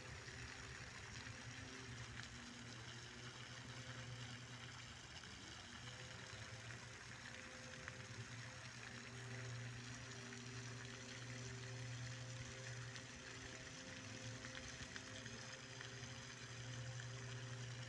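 Faint steady rush of water from a pond fountain, over a low steady hum whose pitch shifts slightly now and then.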